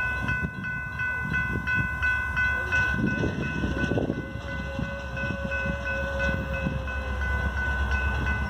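Railroad grade crossing warning bell ringing rapidly and steadily as the crossing activates, signalling an approaching train while the flashers light and the gate arms lower.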